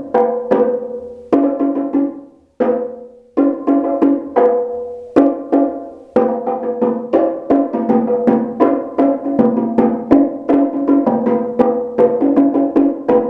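Pair of bongo drums played by hand in a freestyle improvisation: quick strings of ringing strokes, broken by a few short pauses in the first half, then a steady fast rhythm from about halfway through.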